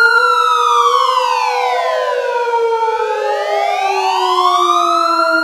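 Civil-defense-style alert siren wailing: one tone falls slowly and rises back over about five seconds, layered over other siren tones that sink gradually in pitch.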